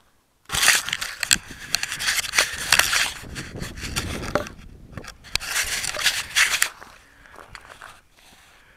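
Close-up handling noise on a small action camera's microphone as it is picked up out of dry grass: a dense run of rubbing, scraping and crackling with sharp clicks that dies away about seven seconds in.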